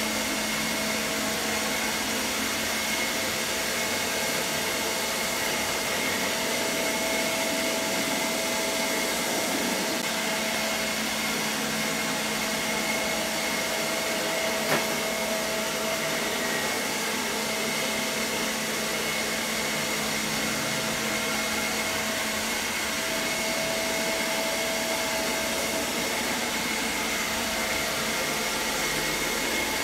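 ILIFE V5S robot vacuum running steadily: an even rush of air under a constant whine from its suction fan. A single short click sounds about halfway through.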